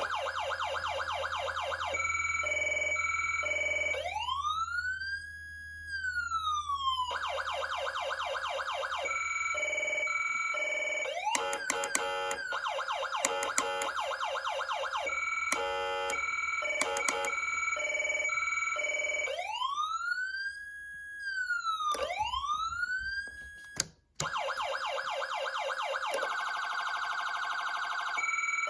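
Federal Signal Unitrol Touchmaster Delta electronic siren cycling through its tones: rapid pulsing yelps, a two-pitch hi-lo alternation, and slow wails that rise, hold and fall. It cuts out briefly about 24 seconds in, then resumes with fast pulsing.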